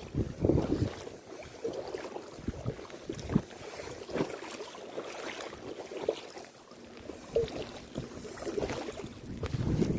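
Kayak paddle strokes splashing and dripping beside an inflatable kayak, with light water lapping. Low wind rumbles on the microphone in the first second and again near the end.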